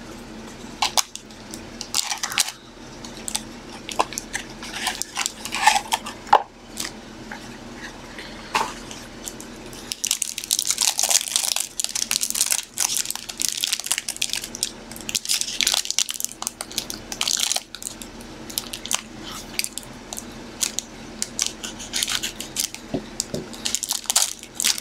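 Hands opening a box of basketball trading cards and its packs: cardboard and foil wrapper crinkling and scraping, with scattered clicks at first and a long spell of dense crinkling about ten seconds in. A faint steady low hum lies underneath.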